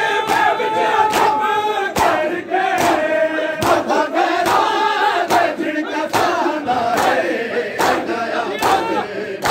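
Crowd of men chanting a noha together while beating their bare chests in unison (matam). A sharp collective slap lands in time with the chant, about five every four seconds.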